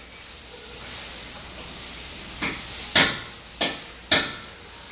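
A steady hiss, then four short, sharp knocks in the second half, about half a second apart: the first is soft, and the second and last are the loudest.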